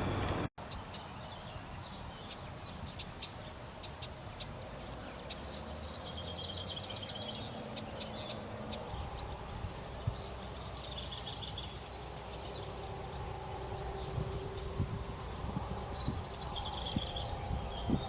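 A songbird repeating the same short song three times, a few seconds apart: a brief high note, then a fast trill. A steady outdoor background noise runs underneath.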